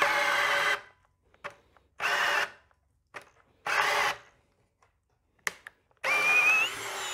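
An AEG 18 V cordless drill-driver boring a large wood bit into a wooden beam in second speed. It runs in short half-second spurts with pauses between them, then in a longer run near the end whose whine rises in pitch and then holds. The drill is struggling to turn the big bit in second speed, which forces a switch down to first speed.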